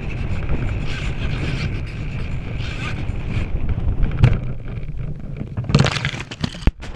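Steady wind buffeting the microphone in the nose of a radio-controlled glider. A sharp knock comes about four seconds in, and rustling and handling noise near the end as a hand grips the glider in the grass.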